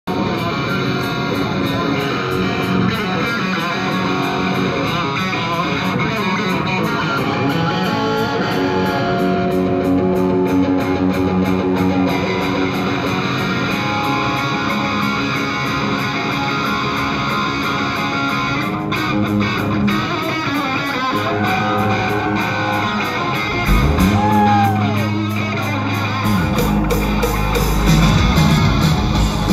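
Live rock band heard from the audience: a single-cut electric guitar plays sustained lead notes with string bends through the amplifiers, and a heavy bass low end comes in about 24 seconds in.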